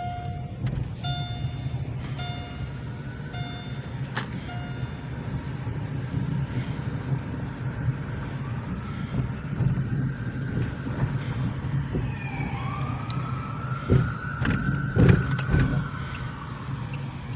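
Car engine and road noise heard inside the cabin, with about five short, evenly spaced beeps in the first few seconds. From about halfway through, a siren wails up and down.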